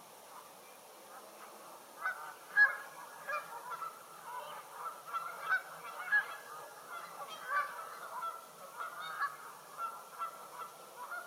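A flock of Canada geese honking. Many short calls overlap, starting about two seconds in.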